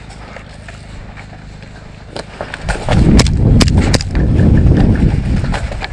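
A player running, with footfalls and heavy movement rumble on the body-worn camera's microphone starting a little under three seconds in. Several sharp clicks stand out over the rumble.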